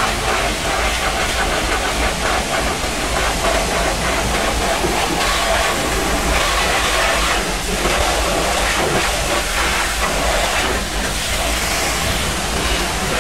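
High-pressure washer lance spraying water up against a truck's underside chassis and axles: a loud, steady hiss of spray hitting metal and mud.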